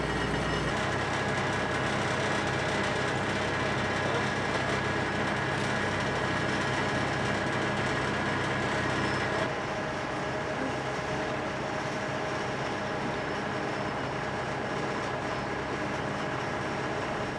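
Demolition machinery engine running steadily, a constant mechanical drone with a steady hum under it. It drops abruptly a little in level about halfway through.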